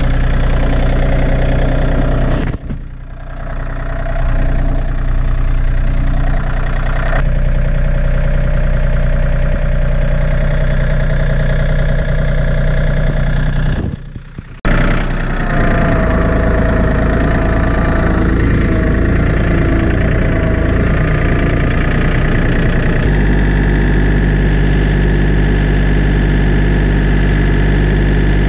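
Compact farm tractor engine running steadily close by, with two brief drops in level. About 23 s in its low rumble grows heavier, as under more throttle or load.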